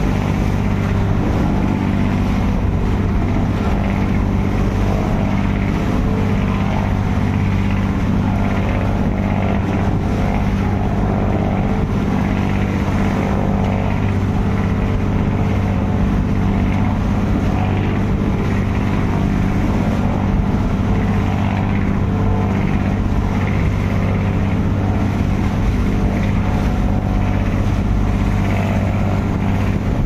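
Fishing bangka's inboard engine running steadily at constant speed, a low even drone with no change in pitch or level.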